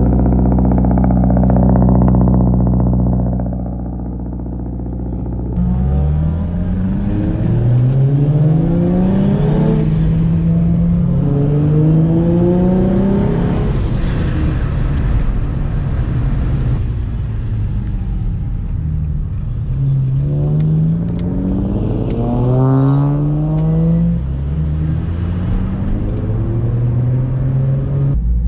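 Turbocharged Nissan 350Z's VQ35HR V6 accelerating hard through the gears. Its pitch climbs and drops back at each upshift, in two runs of several shifts each, with steady cruising between them.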